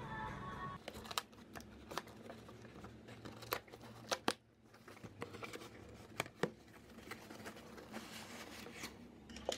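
Background music that stops about a second in, then a cardboard parcel wrapped in packing tape being handled on a desk: scattered sharp knocks and scrapes of the box with light rustling.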